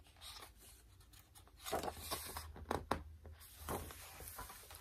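Paper pages of a picture book being turned and handled, a soft papery rustle starting about a second and a half in, with a couple of sharp snaps of the page about halfway through.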